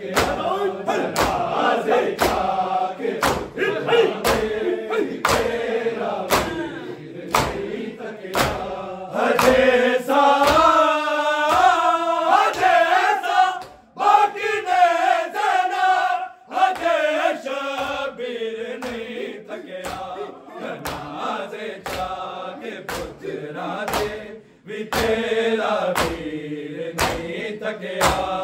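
Men's voices chanting a Punjabi nauha in unison, over the steady slap of many hands beating on bare chests in matam, about four strikes every three seconds.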